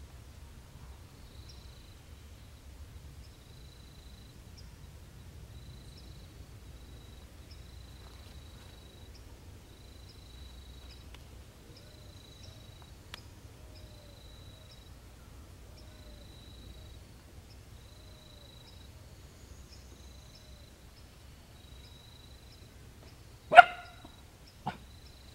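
High, thin insect chirps repeating about every second and a half. Near the end, two short bark-like calls about a second apart, the first much louder.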